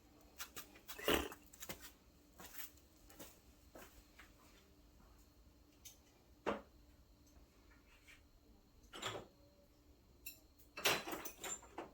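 Scattered clinks and knocks of hand tools and small metal engine parts being handled and set down. There are single knocks about a second in, around six and a half seconds and around nine seconds, and a quick cluster near the end.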